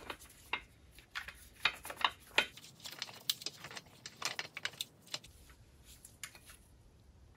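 Light, irregular metallic clicks and clinks of a 3/8 Allen key working in the anode bolt as a new trim anode is hand-tightened onto a Mercruiser outdrive. The clicks thin out over the last couple of seconds.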